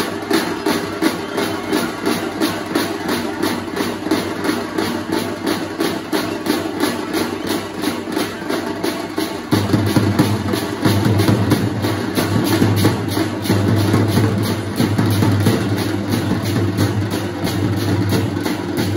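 Music driven by a fast, steady drumbeat of about three to four strokes a second. A deep bass drum joins about halfway through.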